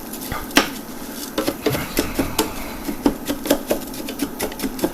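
Long-grain rice sizzling lightly as it toasts in hot oil in a pan, with irregular clicks and scrapes of a utensil stirring it against the pan. The sizzle means the rice is starting to brown.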